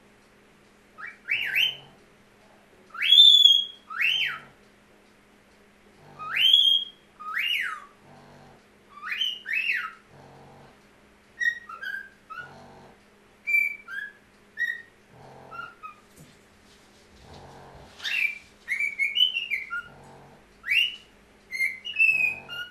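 Pet bird whistling, a long run of short, loud whistles that sweep up and down in pitch, one every second or so, some more chirp-like in the middle.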